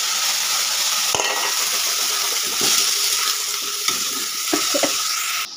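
Chopped vegetables sizzling in hot oil in a wok, stirred with a spatula, with a few short scrapes and knocks against the pan. The sizzle cuts off suddenly just before the end.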